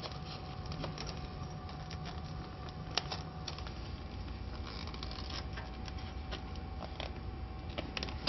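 Clear plastic laminate film rustling and crinkling as it is handled and threaded over the label finisher's rollers, with scattered light clicks and one sharper click about three seconds in, over a steady hum.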